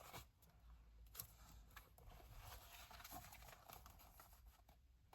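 Near silence, with faint rustling and light ticks of paper pages being handled.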